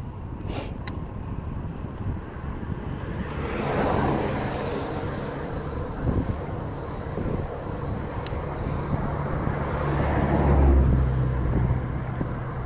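Two motor vehicles passing on a road, the first swelling and fading about four seconds in and a louder one near the end, over steady wind rumble on the microphone. A few light clicks are scattered through.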